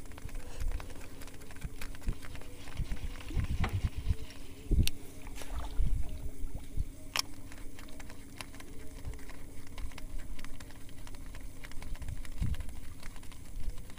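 Baitcasting reel wound steadily through a lure retrieve, a faint even whirr that stops near the end, with a few sharp clicks of the tackle and gusts of wind rumbling on the microphone.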